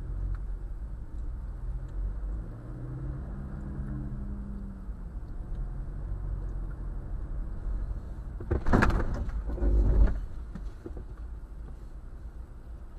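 Car engine and road noise heard inside a moving car, the engine pulling away from a stop during the first few seconds. Two loud, sudden noises come about eight and a half and ten seconds in.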